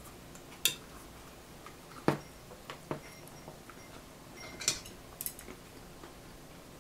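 Chopsticks clinking and knocking against plates and stainless steel bowls while eating: about five sharp separate clinks spread over several seconds.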